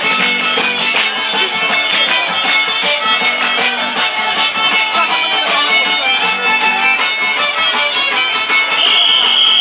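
A violin played live in a fast, traditional style, over many sharp rhythmic beats. A high, steady note comes in near the end and is held.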